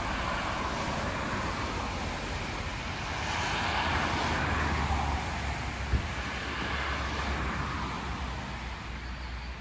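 Steady vehicle road noise with a low rumble, swelling in the middle, and a single short knock about six seconds in.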